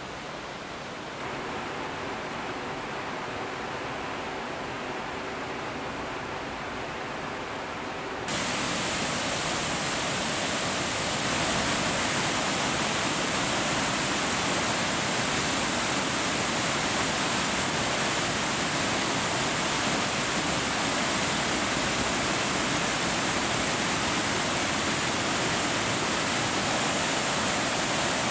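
Whitewater of the Hinterrhein rushing over boulders in a mountain gorge: a steady rush of water that gets distinctly louder about eight seconds in.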